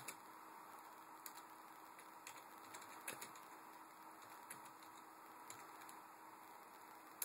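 Salvaged HP LaserJet stepper motors driving a homemade CNC table's X and Y axes along their rails: a faint steady whine with scattered light clicks.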